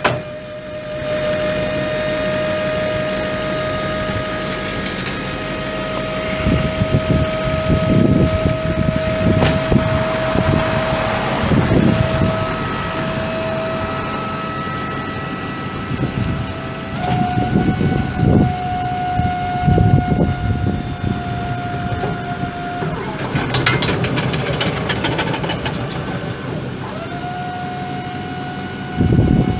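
Chevrolet Silverado 3500HD's 6.6 L V8 turbo diesel engine running, with a steady whine over it. The whine steps up in pitch about halfway through, drops back, and steps up again near the end.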